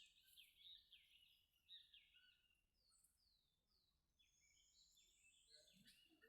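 Faint birdsong: a quick run of short, arched chirps, then a few downward-sliding whistled notes.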